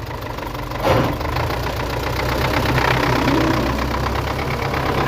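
Vehicle engine running steadily, with a single knock about a second in, after which it grows a little louder as the vehicle moves off.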